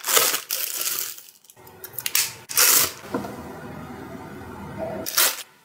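Packaging being handled during an unboxing: a few short rustles and scrapes of box and plastic, spread out with quieter gaps between them.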